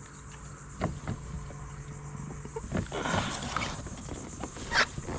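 Scattered knocks and scrapes of fishing gear being handled on a kayak, with a faint steady hum under the first half.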